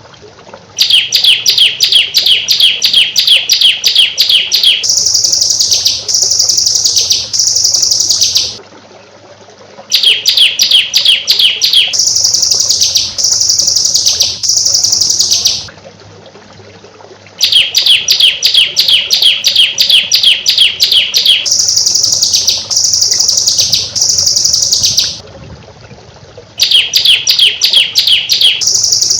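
Recorded songbird song played as a tutoring ('masteran') track of rapid 'tembakan' bursts. A fast run of sharp repeated high notes is followed by three long falling whistles. The phrase repeats in a loop with short gaps.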